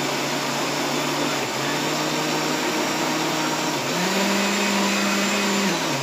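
Electric kitchen blender running steadily as it blends a seasoning paste. Its motor pitch steps up about two-thirds of the way through, holds for about two seconds, then drops back.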